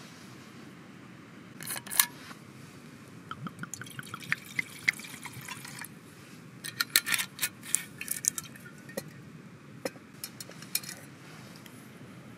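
Whiskey glugging out of a glass bottle into a metal camp mug, a run of short gurgles after a couple of clinks. A cluster of sharp clinks and knocks follows, then a few single taps.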